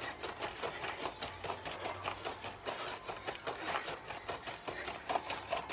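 Trainers stepping rapidly on loose gravel in a fast-feet drill: an even run of short steps, several a second.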